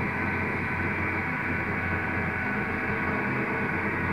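PMSM electric motor being spun at speed by a dynamometer brake, running steadily: a hum and whine of many steady tones, strongest near the bottom.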